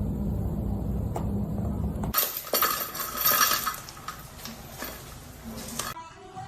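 Clattering and clinking of small hard objects for about four seconds, loudest about a second into it, after a low rumbling noise that stops abruptly about two seconds in.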